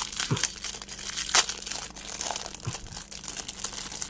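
Clear plastic wrap crinkling and tearing as it is pulled by hand off a small LED bike light, with a steady run of crackles and one louder snap about one and a half seconds in.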